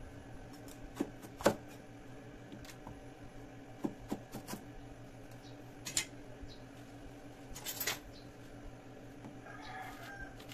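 A cleaver knocks now and then on a thick wooden chopping block as bitter gourd (ampalaya) is cut, with the loudest knock about a second and a half in and a short scrape a little before the eight-second mark. Near the end comes soft scraping as the seeds are cleaned out of a halved gourd.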